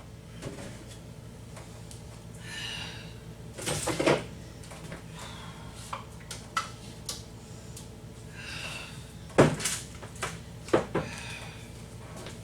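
Refrigerator shelves, bins and containers being handled and wiped during cleaning: scraping or rubbing twice and several sharp knocks and clunks, the loudest about halfway through, over a steady low hum.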